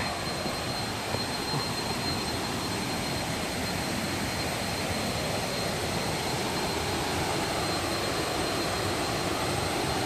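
Waterfall rushing: the steady, even roar of water pouring over a row of low cascades into a pool, growing slightly louder toward the end.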